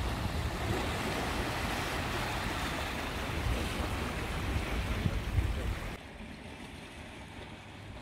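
Sea surf washing over rocks, with wind buffeting the microphone in low rumbles. About six seconds in the sound drops suddenly to a quieter, duller wash.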